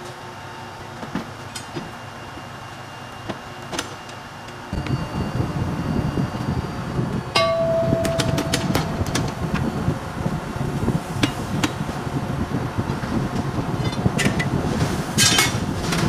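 Hammer blows on a truck tire and its steel rim: a run of sharp knocks from about seven seconds in, one ringing briefly, and a quick cluster near the end. A steady loud mechanical din starts suddenly about five seconds in and runs under the blows.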